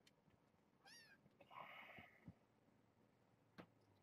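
A four-week-old kitten's single short, high mew about a second in, faint, followed by a brief scratchy rustle and a couple of soft taps.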